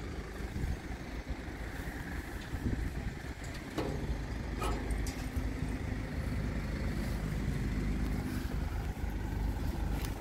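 A motor engine running with a steady low hum that settles in about four seconds in, over a low outdoor rumble, with a couple of brief clicks just before the hum settles.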